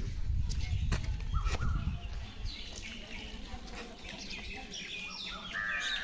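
Several small birds chirping, a busy chorus of short falling chirps that stands out after about two seconds. A low rumble and a few clicks fill the first two seconds.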